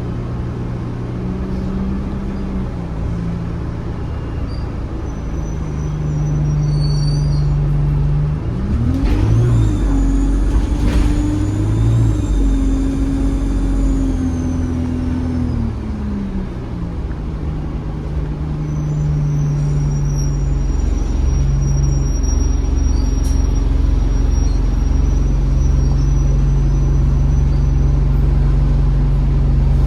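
ADL Enviro 200 bus heard from on board: the diesel engine pulls and changes pitch through the gears. About nine seconds in, the engine tone rises as the bus accelerates and a high turbo whistle comes in, holds, then falls away about seven seconds later. A fainter turbo whistle returns later on.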